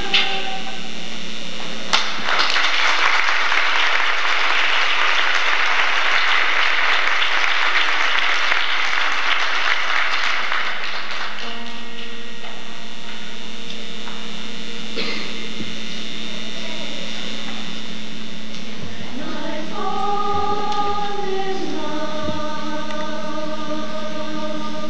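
Audience applause for about nine seconds after a song ends, fading out; then, near the end, a mixed high school choir begins singing long held chords.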